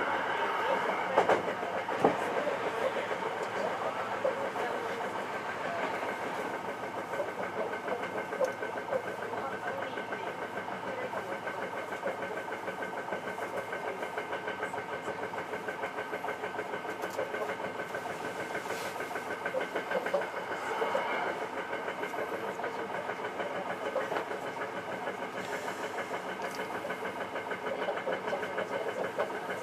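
Hankyu 9300 series electric train running, heard from the front car: steady rail and running noise with a steady hum, and a couple of sharp clicks one to two seconds in.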